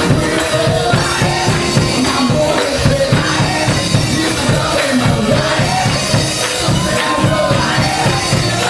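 Gospel mass choir singing with a live church band, drums keeping a steady beat underneath.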